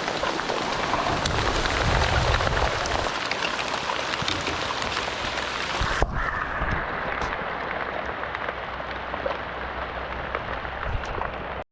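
Heavy rain falling steadily, a dense hiss of drops with individual drops ticking through it. About halfway through the sound abruptly turns duller.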